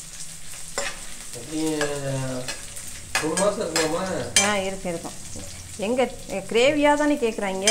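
Steel ladle stirring dried red chillies, garlic and cumin seeds sizzling in hot oil in a ceramic-coated pan, with a few sharp knocks of the ladle against the pan.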